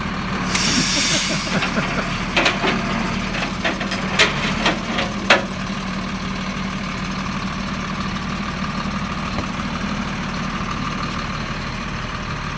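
An engine idling steadily throughout. About half a second in there is a short hiss, and a handful of sharp metallic knocks and clanks come between about two and five and a half seconds.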